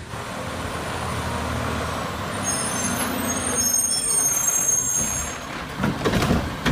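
Garbage truck sound effect: a steady truck engine rumble, with high squealing tones joining in for about three seconds in the middle.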